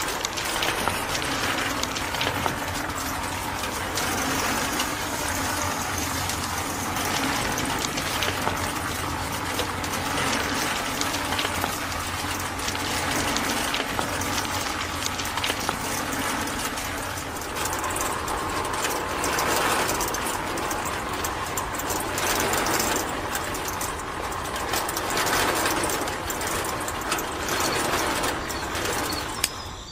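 Small DC motors driving a miniature bucket conveyor belt and a vibrating wire-mesh sieve, running steadily with a dense mechanical rattle as sand and small stones shake on the screen.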